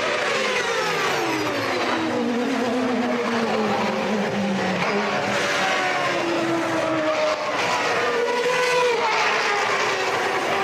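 Several 1993 Formula One cars' naturally aspirated 3.5-litre racing engines screaming past. Their pitch drops over the first couple of seconds as they brake and downshift, then climbs again as they accelerate, with more than one engine heard at once.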